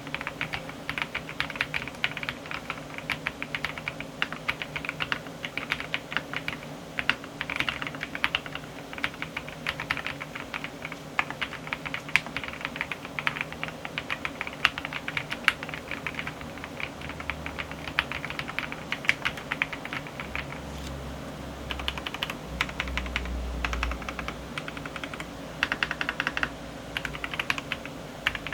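Fast, continuous typing on a Ducky OK-M 98KE mechanical keyboard with KTT Red Wine linear switches: a dense, uneven stream of key clacks, with bursts of quicker keystrokes near the end.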